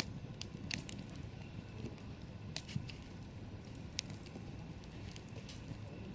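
Wood campfire crackling, with sharp pops at irregular moments over a low steady rumble.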